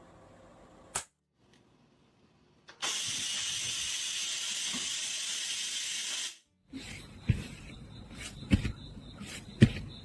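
A steady hiss lasting about three and a half seconds, which starts and cuts off abruptly. It is followed by a few sharp knocks.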